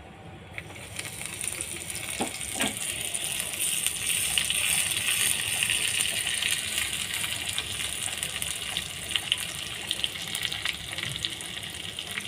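Cumin seeds and dried red chillies sizzling and crackling in hot refined oil in a small tempering pan: a tadka being fried. The sizzle starts about half a second in and builds to a steady hiss with scattered crackles.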